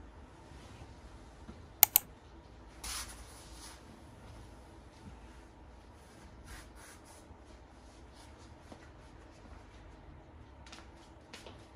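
Quiet room with small handling sounds: two sharp clicks close together about two seconds in, a brief scrape a second later, then scattered light taps and ticks.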